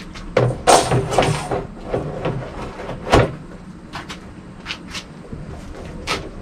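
Knocks and clatter of a steel frame being lowered over and fitted around a plastic barrel, with a sharp knock a little after three seconds in and a few lighter clicks later.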